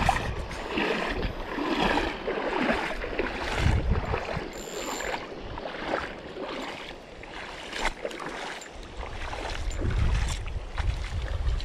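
Running water from a shallow stream, with wind buffeting the microphone in gusts and scattered small clicks and scrapes as a small fish is reeled in on a spinning reel.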